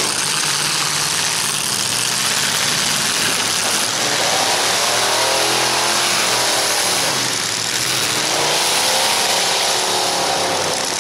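Several demolition-derby truck engines revving hard over a steady roar, their pitch rising and falling a few times about halfway through and again near the end.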